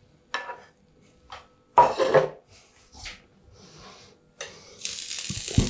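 Metal spatula clinking and scraping on a frying pan as pasta is tipped into a ceramic plate, a few separate clatters with the loudest about two seconds in, and the plate knocking down on a wooden board. Near the end a steady rustling starts.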